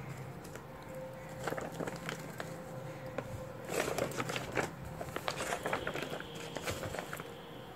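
Paper wall calendar being handled and its pages lifted and turned, crinkling and rustling in irregular clusters of crackles, loudest about halfway through.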